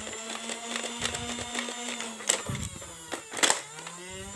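Nerf Elite Strife's flywheel motors whirring steadily while darts are fired one at a time, semi-auto: a click a little past two seconds in and a louder pair of clicks about three and a half seconds in. The motors whir back up in a rising pitch near the end.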